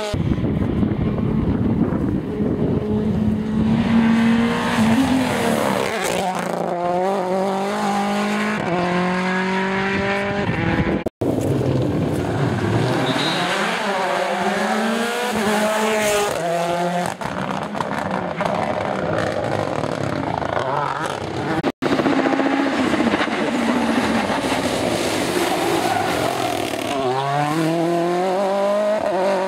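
Mini WRC rally car's turbocharged 1.6-litre four-cylinder engine revving hard, its pitch climbing and dropping again and again as it accelerates and shifts gear. Three separate passes are cut together, with abrupt breaks about 11 and 22 seconds in.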